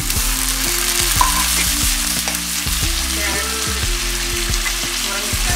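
Shallots, tomatoes and sliced carrots sizzling steadily in hot gingelly oil in a stainless steel kadai, stirred with a steel ladle that gives a few light clicks against the pan.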